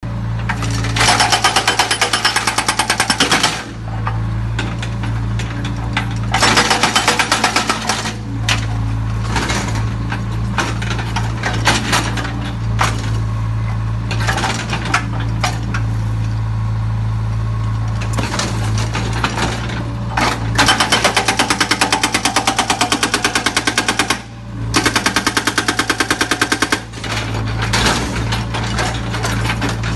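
Backhoe loader's diesel engine running steadily, with several bursts of rapid, evenly paced hammering lasting a few seconds each.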